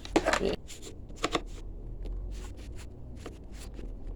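Light clicks and scrapes of plastic motorcycle bodywork being handled and pried at by hand, as a cover is worked loose. The clicks come in a quick cluster in the first second and a half, then thin out to scattered small ticks.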